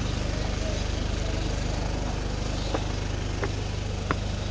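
A motor vehicle's engine idling nearby: a steady low hum with a fast, even pulse. A few sharp clicks come in the second half, about two-thirds of a second apart.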